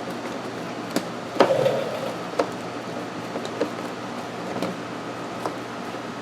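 Scattered clicks and knocks of the plastic AC box housing and its parts being handled during disassembly, the loudest about a second and a half in, followed by a short rattle. A steady hum runs underneath.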